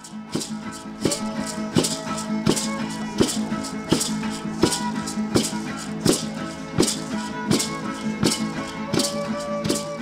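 Music: a maracá rattle shaken in a steady beat of about three strokes every two seconds, over a low held drone and sustained melodic tones.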